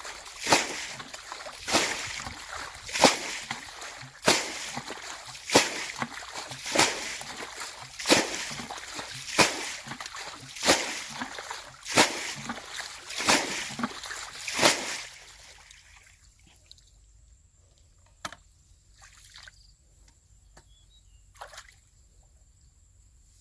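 Water splashing in a steady rhythm, one loud splash about every 1.3 seconds, a dozen in all, stopping about 15 seconds in. Near quiet follows, with a few faint ticks.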